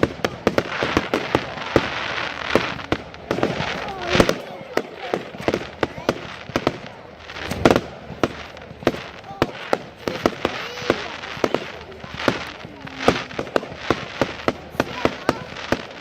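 Fireworks display with many sharp bangs and crackles going off in quick succession throughout.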